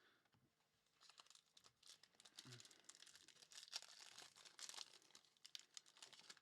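Faint crinkling and tearing of a plastic trading-card pack wrapper being opened, starting about a second in.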